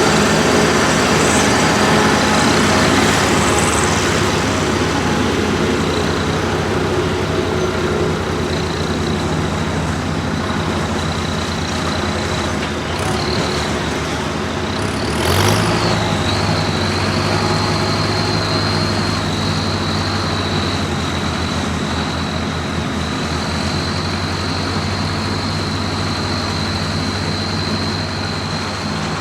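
Farm tractor diesel engines and harvesting machinery running steadily, with a constant high-pitched whine over the engine note. About halfway through, the sound swells briefly and a deeper engine drone takes over.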